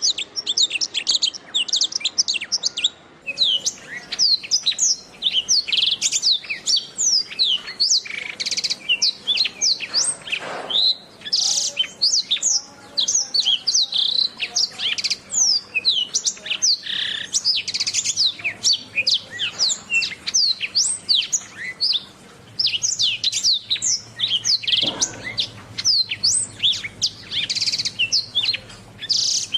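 Domestic canary singing a continuous, fast-paced song of chirps and trills, many quick sweeping notes a second with hardly a pause.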